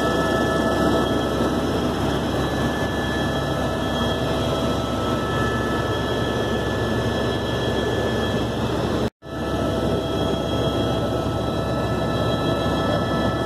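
Helicopter in flight, heard from inside the cabin: a steady engine and rotor drone with several steady whining tones over it. The sound drops out for a moment about nine seconds in.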